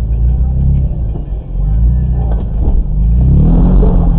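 Toyota off-road vehicle's engine labouring under load as it climbs a steep rise, heard from inside the cab, its pitch rising and falling from about three seconds in. A couple of brief knocks sound about two and a half seconds in.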